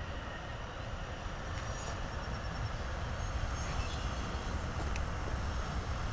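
Bombardier CRJ regional jet's twin rear-mounted turbofans rumbling during its landing rollout, growing gradually louder, with a faint high whine partway through.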